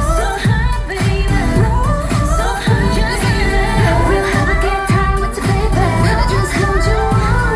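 K-pop song with singing over a heavy, steady bass beat, played loud through a venue sound system.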